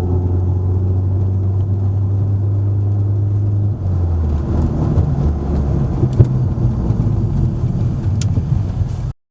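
Audi A3's engine running: a steady low hum for the first few seconds, then a rougher, fuller note from about four seconds in, with one sharp knock about six seconds in. It cuts off suddenly near the end.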